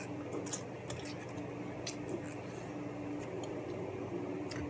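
Eating sounds: a few faint, sharp clicks and small wet mouth noises over a steady low hum.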